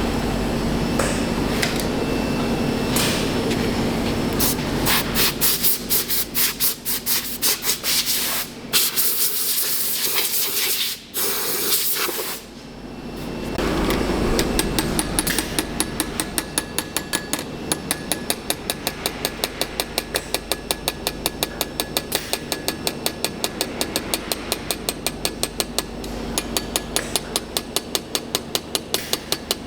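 Repeated tool strikes during foundry sand-mould work. Irregular knocks at first, then from about halfway an even, rapid run of about three strikes a second, over a steady machine hum at the start.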